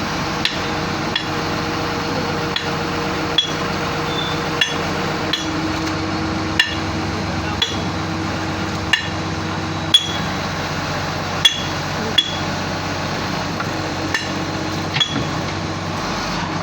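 Earth drilling machine running steadily, with sharp metallic clanks that ring briefly, about one a second at uneven intervals.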